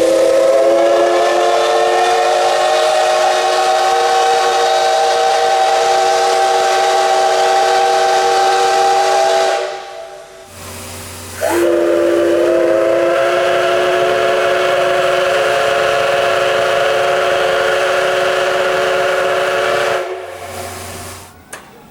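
Steam locomotive whistle blowing two long blasts of about nine seconds each, several steady tones sounding together over a hiss of steam, the pitch bending up slightly as each blast opens. The second blast starts about a second and a half after the first stops, and a short toot begins near the end.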